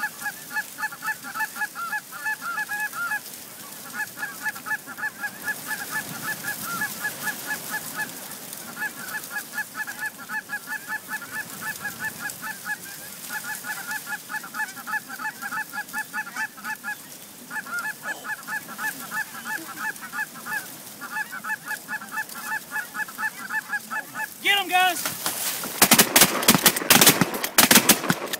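Canada goose honking, fast evenly spaced honks in runs of two to three seconds with short pauses between them. Near the end comes a quick volley of about half a dozen shotgun blasts, much louder than the honking.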